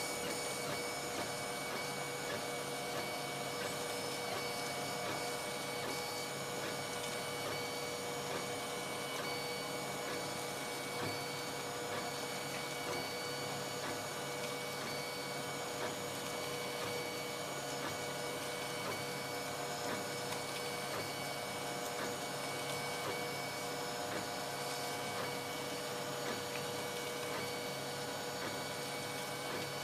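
dApA 1 3D printer printing, its motors giving a steady mechanical whine with several held tones.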